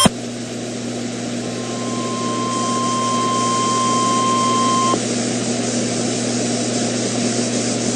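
NOAA Weather Radio receiver hissing with static and a low hum, with the 1050 Hz warning alarm tone sounding steadily from about a second in and cutting off abruptly about five seconds in. The tone is the signal that an urgent warning broadcast follows.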